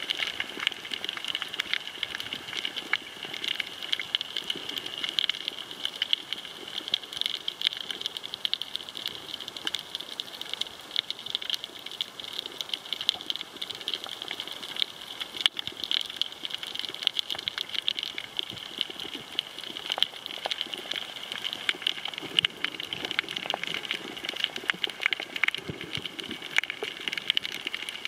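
Underwater coral-reef crackle: a dense, irregular patter of tiny clicks, the background sound typical of snapping shrimp on a reef.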